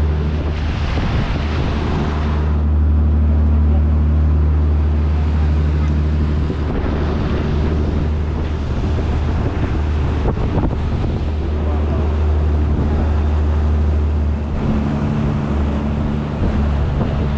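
A fishing boat's engine running steadily under way, with water rushing past the hull and wind on the microphone, the wind noise strongest in the first couple of seconds.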